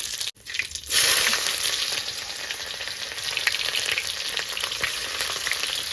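Vegetables frying in hot oil in a kadai: a steady sizzle with small crackles and spits, which gets louder about a second in.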